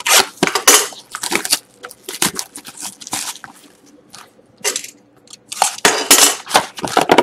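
Plastic shrink wrap being cut and torn off a cardboard trading-card box, crinkling in irregular bursts with the box being handled. The bursts are loudest at the start and again near the end, with a quieter stretch in the middle.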